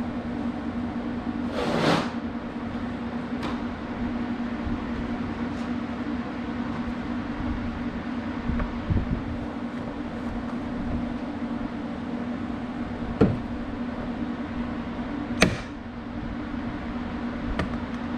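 John Deere Gator hood being lowered and worked down over its mounting studs: a scrape about two seconds in, then a click and a louder knock near the end, over a steady low hum.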